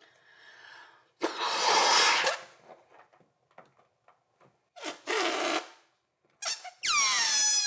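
A latex balloon being blown up with two long breaths, then air let out through the stretched neck in a loud squeal that slides down in pitch near the end.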